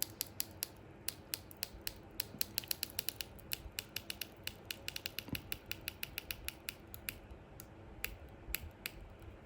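iPhone 6S battery adhesive strip being slowly stretched out from under the battery, letting go with a run of sharp little clicks, fastest in the middle at several a second and thinning out near the end.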